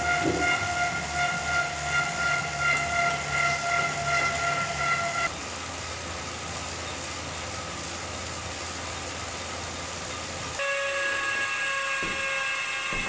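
Wahoo Kickr 2017 direct-drive smart trainer under pedalling, giving its typical high-pitched whine of several steady tones. About five seconds in it cuts to the Kickr 2018, which is much quieter: only the chain and drivetrain and a light flywheel wind noise, with no whine. Near the end the Kickr 2017's whine returns at a lower pitch, with a few short knocks.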